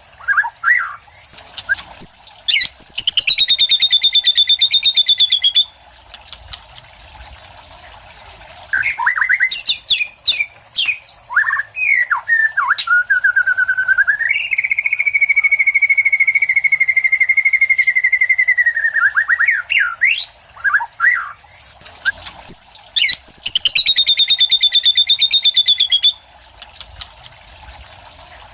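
White-rumped shama (murai batu) singing a varied song. It gives two fast buzzing trills, one early and one near the end, and a long steady whistle in the middle, with quick chirps and slurred notes between phrases.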